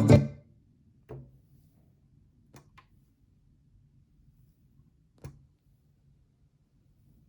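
Music playing through a Pioneer SX-626 stereo receiver cuts off right at the start, leaving a faint low hum broken by a few soft, sharp clicks: one about a second in, two close together a little later, and one more past the middle.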